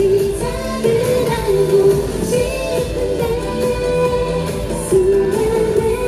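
A K-pop girl group singing a pop song live, with the melody sung over full pop backing music.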